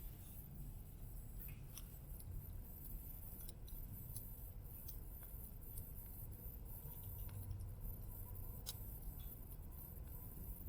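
Small wood campfire crackling faintly, with scattered sharp pops and snaps over a low, steady rumble.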